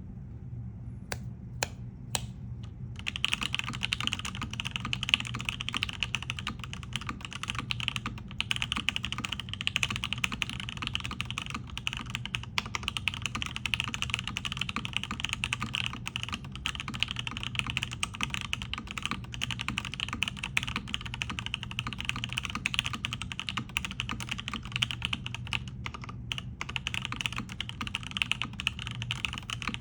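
Mechanical keyboard with Gateron Box Ink V2 linear switches, an aluminium plate and CRP Tulip keycaps, being typed on. A few single keystrokes come first, then fast continuous typing starts about three seconds in, with a couple of short pauses. A steady low hum sits underneath.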